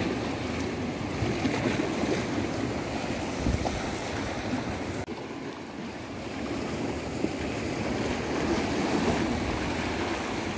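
Sea waves washing against the rocks of a jetty: a steady rushing wash that swells, eases about halfway through, then builds again.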